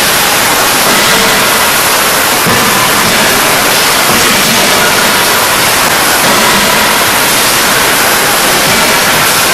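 Loud, steady din of forging-shop machinery: a dense, hiss-like noise with no distinct hammer blows standing out.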